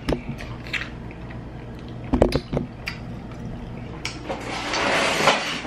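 A few light clicks, then a cluster of knocks about two seconds in as things are handled on a kitchen counter, followed near the end by a long breathy rush of noise.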